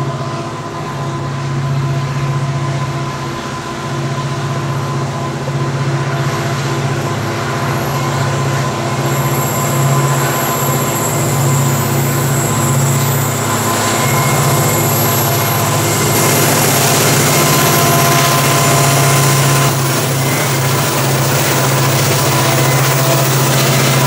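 Two CC 205 diesel-electric locomotives hauling a long coal train, their engines running with a steady low drone, with thin steady high-pitched tones over it. It grows louder as the train approaches and passes close by.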